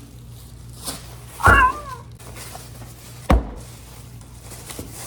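A short, wavering animal call about a second and a half in, with a low thump under its start, then a single sharp knock about three seconds in.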